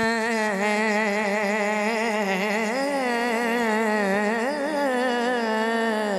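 A male naat reciter singing one long wordless held note, its pitch wavering and ornamented throughout; it starts abruptly and carries on without a break.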